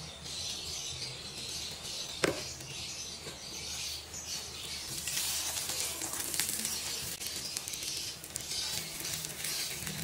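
Butter sizzling and crackling as a paratha fries on a hot flat iron tawa, the sizzle growing louder from about halfway. A single sharp tap about two seconds in.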